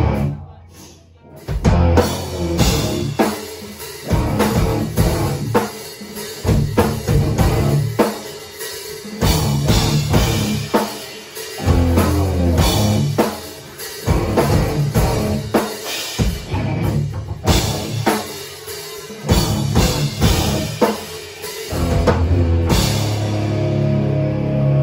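Live rock band playing electric guitar, bass guitar and drum kit, with hard-hit bass drum and snare. Near the end the drums stop and a held guitar and bass chord rings on.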